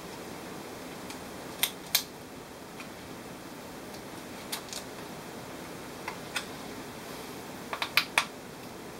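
Sharp, scattered clicks and taps of small plastic and metal laptop parts being handled during disassembly, in pairs, with a quick run of four or five clicks near the end.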